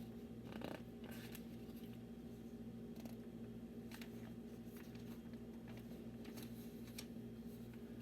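Faint handling sounds: a few light clicks and rustles spread out over several seconds, over a steady low electrical hum.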